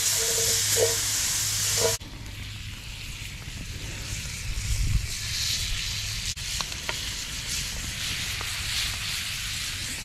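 Butter sizzling hard in a very hot skillet over a campfire, then dropping about two seconds in to a quieter, steady sizzle as chicken breasts fry in the butter.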